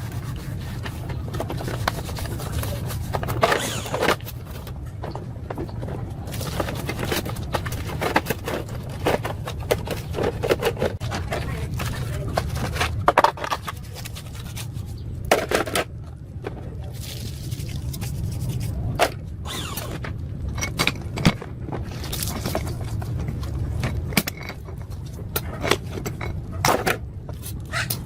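Hand tools and metal parts clinking, knocking and scraping in irregular strokes as a motorbike engine is worked on, over a steady low hum.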